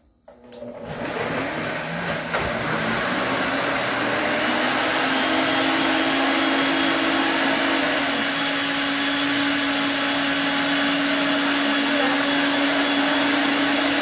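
Two countertop blenders, a Princess House Vida Sana and a Royal Prestige, running side by side at full speed, grinding chiles with their seeds in water into a purée. The motors spin up over the first couple of seconds into a steady loud whir, and a low steady tone joins about five seconds in.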